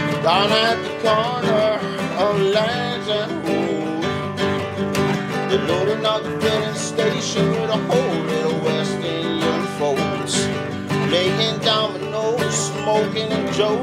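Nylon-string classical guitar strummed in a steady rhythm, with a man's voice singing a wavering melody over it.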